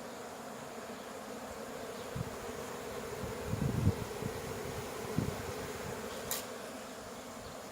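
Honey bee swarm buzzing in a steady, dense hum. A few low thumps come through, the loudest about four seconds in, and there is a brief sharp click near the end.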